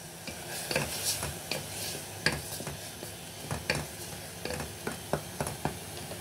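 Wooden spatula stirring onions and ground spices in an aluminium pressure cooker, with irregular knocks and scrapes against the pot over a light sizzle of frying.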